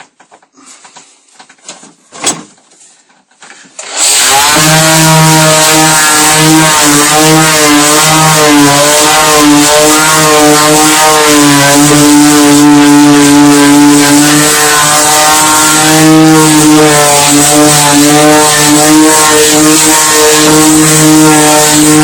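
Faint handling noises and a single knock, then a very loud, steady buzzing drone with a wavering pitch. It starts suddenly about four seconds in and cuts off suddenly at the end.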